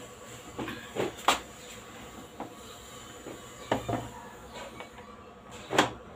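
Scattered short knocks and clinks from a utensil working in a cooking pot and things being set down on a table, about seven in all, the loudest about a second in and near the end.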